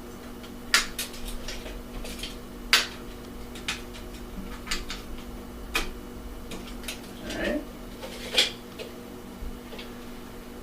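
Scattered light clicks and taps of a tape measure and pencil being handled while measuring and marking, over a steady low hum.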